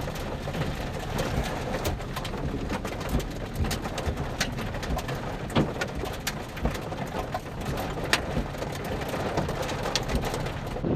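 Steady low rumble of a vehicle with scattered, irregular ticks of rain striking it.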